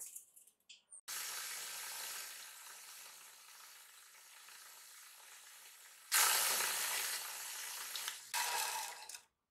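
Cloth buffing wheel on a polishing spindle rubbing against a blowtorch's metal burner tube: a steady friction hiss that gets louder about six seconds in, breaks off briefly, then comes back for a moment before stopping.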